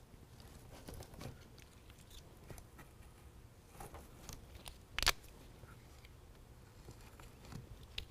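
Faint rustling and small ticks of 2-inch adhesive-backed Velcro strips being handled: the backing peeled off and the strips pressed onto the truck bed wall. One sharper click about five seconds in.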